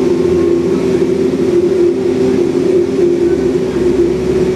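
Cummins ISBe diesel engine of an Alexander Dennis Enviro400 double-decker bus, heard from inside the bus while it drives, with a steady droning tone over the engine and road noise.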